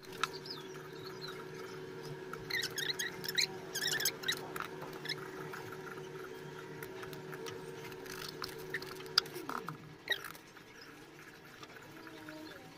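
Green papaya being cut on a boti, a curved upright kitchen blade: soft scattered taps and scrapes. Faint high chirps come a few seconds in, and a low steady hum glides down and stops about nine seconds in.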